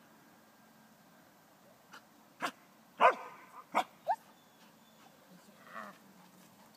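Belgian Malinois giving a quick burst of about four short, sharp barks about halfway through, the loudest just after the first, ending on a brief rising yip.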